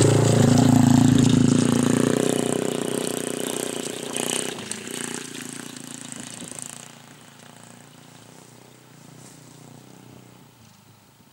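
KXD 612 Pro mini cross dirt bike passing close by, its engine note dropping in pitch as it goes past, then the engine fading steadily as the bike rides off across the field, faint by about seven seconds in.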